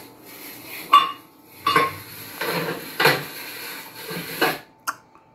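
Dishes and cutlery clinking and clattering in short irregular bursts, with one sharp ringing clink about a second in, played back from a video through a TV soundbar; it cuts off near the end.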